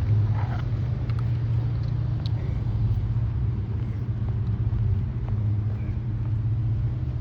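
Steady low rumble of an idling car, muffled, with a few faint ticks over it.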